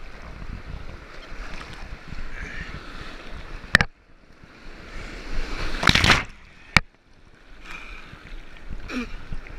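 Whitewater rushing and splashing against a kayak's deck, heard from a deck-mounted action camera, with paddle strokes. About four seconds in the sound turns quiet and dull for a few seconds as water washes over the deck, broken by a loud splash about six seconds in and framed by two sharp knocks.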